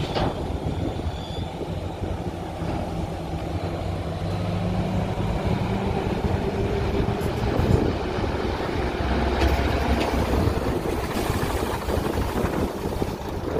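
Diesel engines of tipper semi-trucks running as the trucks pull forward with their dump bodies raised. It is a steady, low engine sound whose note shifts a few times.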